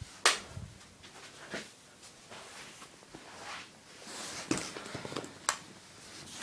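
Handling noise: a few sharp clicks and knocks with light rustling, the loudest about a quarter second in and another sharp click near the end.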